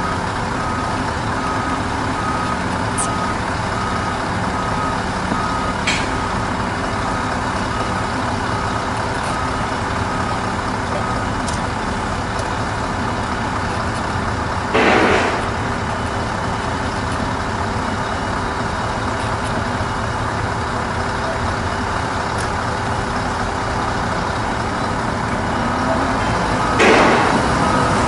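Heavy diesel truck engines idling steadily. Short loud air-brake hisses sound twice, about halfway through and near the end. A faint high beep repeats about once every 0.7 seconds for the first ten seconds and again near the end.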